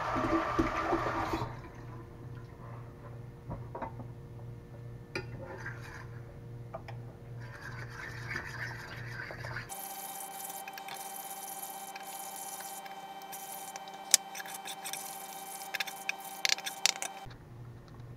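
A short rush of running water at the start, then a utensil scraping and tapping against a cast iron skillet as beaten eggs and vegetables are stirred, with several sharp clicks from about 14 seconds in.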